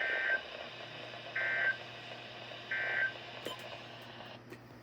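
Emergency Alert System end-of-message signal: three short bursts of two-tone digital data, about a second and a half apart, marking the end of the weather radio test broadcast. A couple of faint clicks follow near the end.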